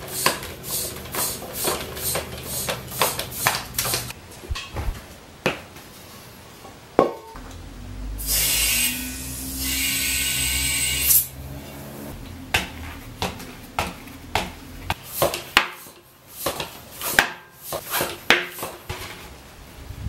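Strokes of a floor pump into a tubeless mountain-bike tyre, about two a second, then a hiss of about three seconds as an air-compressor tank's inflator blasts air into the tyre to seat the beads. Scattered sharp clicks and knocks follow as the wheel is handled.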